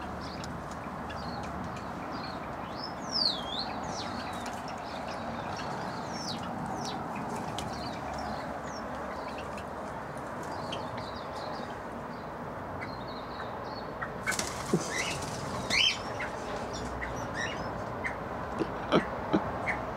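Aviary ambience: small birds chirping and whistling in short scattered calls over a steady background hum, with a brief rustle about two-thirds of the way through.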